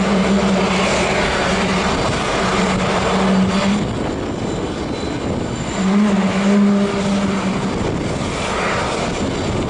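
Union Pacific 4014 Big Boy steam locomotive standing under steam, with a loud, steady hiss of escaping steam. A low hum cuts in and out underneath it.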